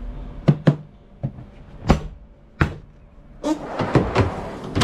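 Several sharp knocks and clunks from handling a Dometic CFX portable fridge-freezer, coming a fraction of a second to a second apart. Near the end comes a rustle and a clunk as its lid is shut.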